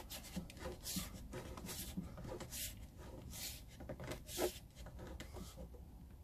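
Short, faint scrapes and rubs as a red plastic air filter is turned by hand into the threaded intake of a Parkside 24-litre air compressor's head, plastic threads grinding with each twist. The scrapes come irregularly, several a second at times.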